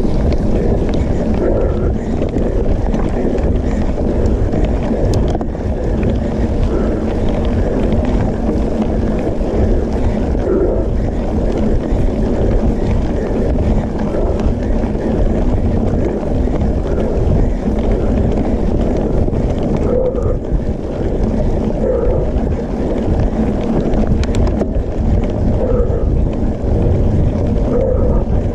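Wind buffeting the bike-mounted camera's microphone over the rumble of mountain-bike tyres rolling on a dirt track: a steady, loud, low noise with no pauses.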